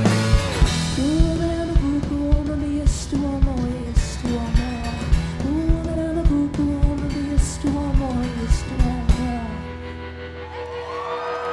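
Live rock band playing to the end of a song: a sung melody over guitar and a steady kick drum beat about twice a second. The band stops about nine and a half seconds in, and crowd cheering and whoops rise near the end.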